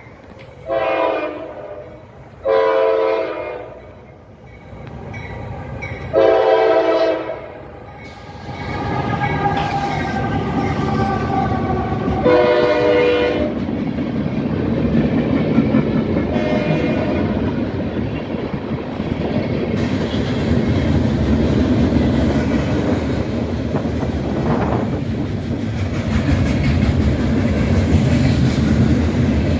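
Diesel freight locomotive air horn sounding a string of chord blasts: three in the first eight seconds, then more as the train comes up about eight seconds in. After the last blast, the passing train's wheels rumble and clatter steadily on the rails.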